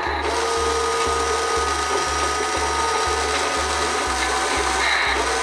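Small electric geared motor of a Huina 1:10 diecast RC forklift whining steadily as the lift mast lowers the forks. Background music with a steady low beat about twice a second runs underneath.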